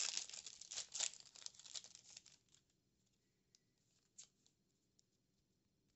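Foil Yu-Gi-Oh booster pack being torn open, the wrapper crinkling and tearing for about the first two and a half seconds. Then a few faint ticks.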